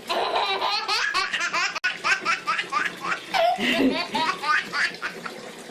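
Baby laughing hysterically in quick, repeated bursts of giggles, with a brief break about two seconds in.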